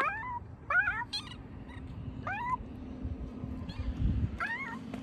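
Four short meows, each rising in pitch, about a second or more apart, over a steady low hum.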